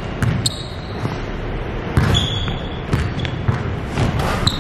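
Basketball dribbled on a hardwood gym floor, bouncing at an irregular pace, mixed with short high squeaks of sneakers on the court.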